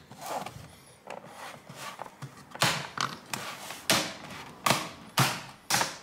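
The snap-in clips of a Lenovo Ideapad S145-14IIL's plastic bottom cover pop loose one after another as a plastic pry tool is worked along the seam. Light scraping comes first, then about five sharp snaps in quick succession in the second half.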